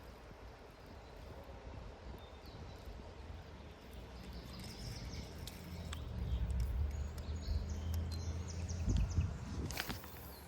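Faint bird chirps over a low rumble that builds from about halfway through. Near the end comes a short swishing burst, the cast of a fishing rod and line.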